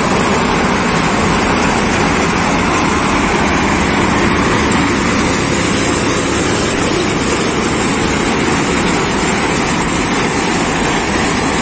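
Combine harvester running steadily while cutting standing wheat, its engine and machinery making one loud, even noise.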